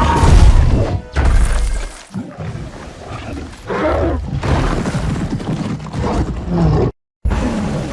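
Film sound design of the giant ape Kong: deep rumbling vocalisations and roars over heavy low booms and film score, broken by a sudden cut to silence near the end.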